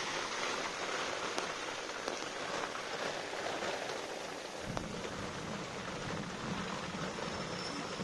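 Steady rain falling, with a low rumble of thunder coming in about halfway through.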